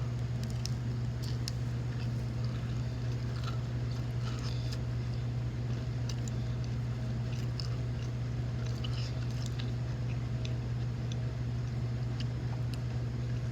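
A person chewing a honey butter chicken biscuit, with scattered small wet mouth clicks, over a steady low hum.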